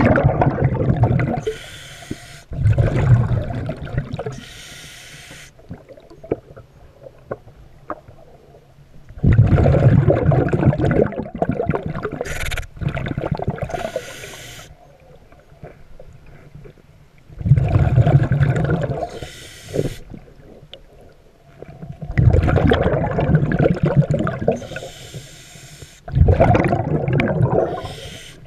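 A diver breathing through a regulator underwater: about six loud bubbling exhalations several seconds apart, with shorter hissing inhalations between them.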